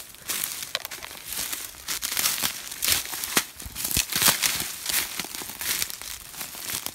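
Footsteps pushing through dry undergrowth: leaves, grass and twigs crackling and rustling underfoot and against the legs in irregular, closely spaced bursts.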